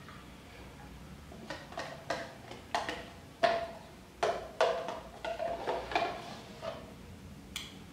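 A metal spoon scraping and knocking inside a disposable cup, a dozen or so quick uneven strokes in bursts.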